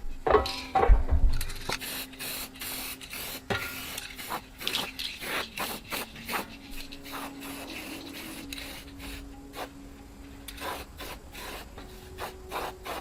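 Hand work on parts: rubbing and scraping with many short clicks and knocks, over a faint steady low hum.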